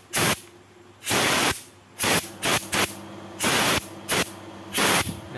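A spray nozzle hissing in about eight short bursts, each under half a second, aimed at the circuit board of a BMW E90 accelerator pedal position sensor to clean it.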